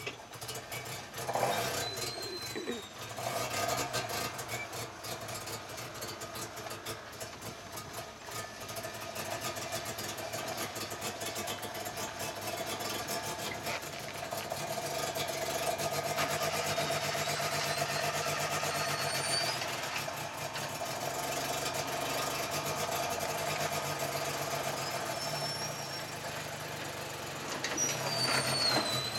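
Off-road vehicle engine running under load, growing louder from about a third of the way in and holding there, with a few short high chirps over it.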